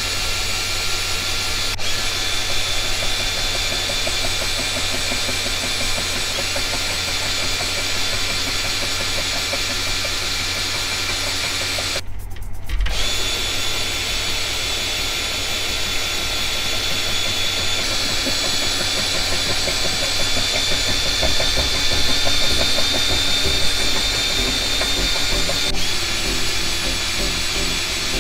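Flex-shaft drain cleaner running, its cable spinning inside a drain pipe to scour hardened grease off the pipe walls: a steady motor sound with a constant whine that cuts out briefly about twelve seconds in.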